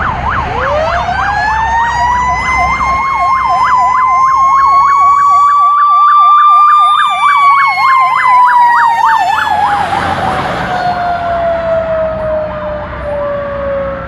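Fire engine sirens: an electronic siren yelping rapidly, about four cycles a second, while a Federal Q2B mechanical siren winds up in a long rising whine over about seven seconds, then coasts down slowly. The yelp cuts off about two-thirds of the way through, leaving the falling whine of the Q2B.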